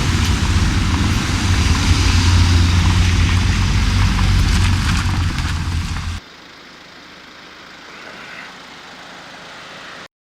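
A running engine, a loud steady low rumble, which cuts off abruptly about six seconds in and leaves a faint hiss.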